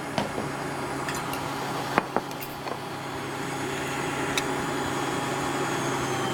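Electric stand mixer motor running with a steady hum, its beater mixing butter, sugar, egg and flour into tart dough, with a couple of light clicks; the motor stops near the end.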